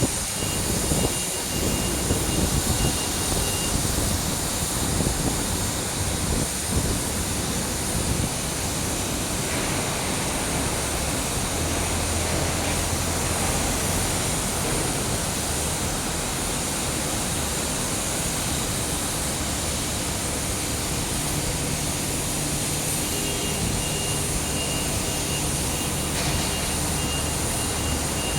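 Blast furnace running with a steady rushing noise and a low hum underneath. A faint, high, broken beeping is heard in the first few seconds and again near the end.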